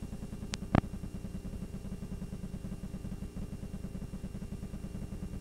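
A low, quickly pulsing hum, with two sharp clicks close together a little under a second in.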